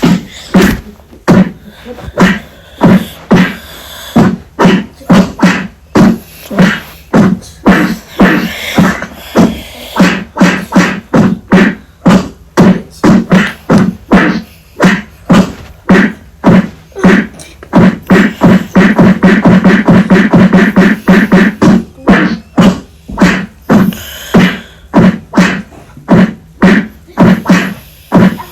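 A long run of punch-like hits, about two a second, quickening into a rapid flurry in the middle: staged fight sound effects.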